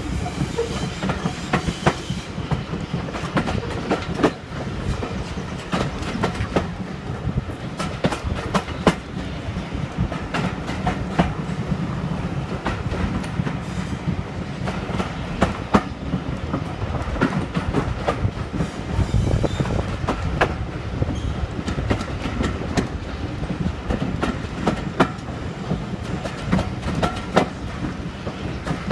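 A heritage steam railway passenger coach running along the line, heard from its open window: a steady rumble and rush of air, with frequent sharp clicks of the wheels over the rail joints.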